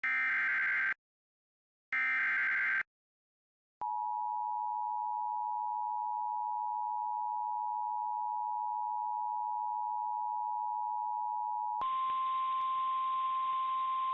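Emergency Alert System signal opening a severe thunderstorm warning. First come the last two of three SAME data-header bursts, each about a second long with a pause between. Then the steady two-tone EAS attention signal sounds for about eight seconds, and near the end it gives way to a single, slightly higher weather-radio alert tone over radio hiss.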